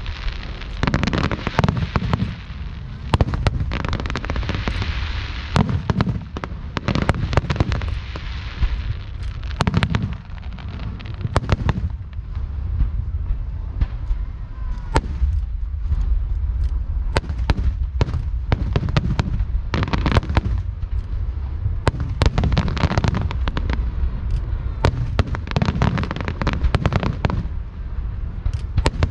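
Aerial fireworks bursting in a dense, continuous barrage: many sharp cracks and bangs over a steady low rumble, with a stretch of crackling hiss a few seconds in.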